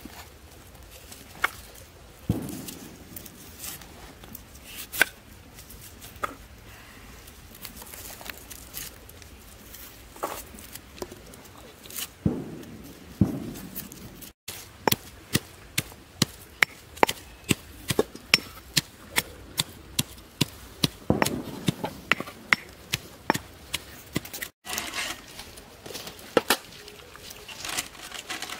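Knife chopping on a wooden cutting board: scattered sharp taps at first, then a steady run of chops, about two a second, through the middle.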